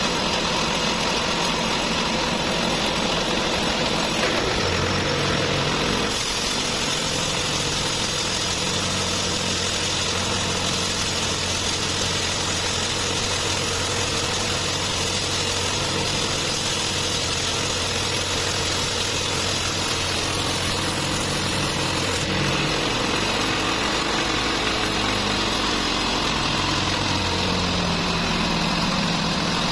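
Sawmill band saw running and ripping lengthwise through a large trembesi (rain tree) log: a steady machine noise that turns brighter and harsher from about six seconds in to about 22 seconds while the blade is in the wood, then runs on freer.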